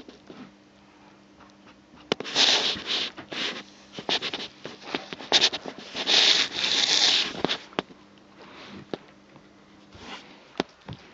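Fabric rustling and scraping in loud stretches through the middle, with scattered sharp clicks and crackles, over a faint steady hum.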